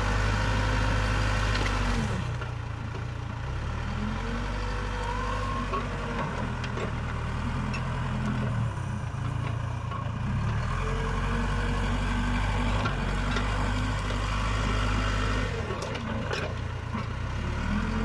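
Case 580 Super K backhoe loader's diesel engine running under load while the front loader bucket works. Its pitch rises and falls in slow swells several times as the machine pushes into brush and lifts it.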